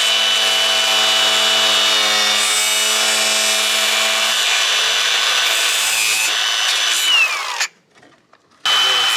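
High-speed power cutting tool running and cutting, a steady high-pitched whine over a rasping grind. About seven seconds in the pitch falls as the tool spins down, the sound cuts out abruptly for about a second, then the whine starts again.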